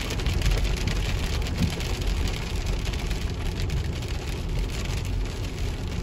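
Heavy rain falling on a vehicle's roof and windshield, heard from inside the cabin as a dense, steady hiss of drops over the low rumble of the vehicle rolling along a wet road.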